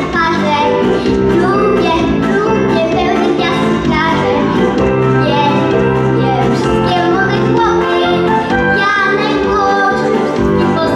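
A young boy singing into a microphone over instrumental accompaniment, his voice amplified through the hall's sound system.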